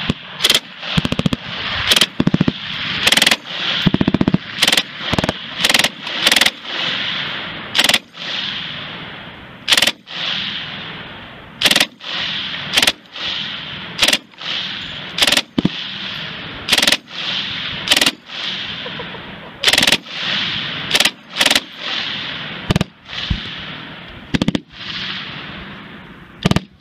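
C9 light machine gun (5.56 mm) firing short full-auto bursts of a few rounds each, about one burst a second, each burst followed by a long echo.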